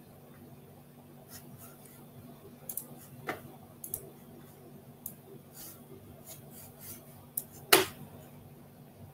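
About a dozen short, sharp clicks and taps scattered irregularly, the loudest a knock near the end, over a faint steady low hum.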